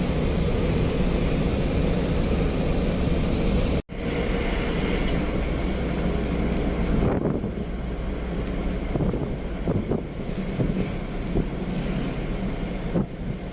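Road and engine noise of a moving vehicle, a steady rumble heard from on board. It drops out abruptly for a split second about four seconds in, then turns quieter and more uneven, with scattered small knocks, about seven seconds in.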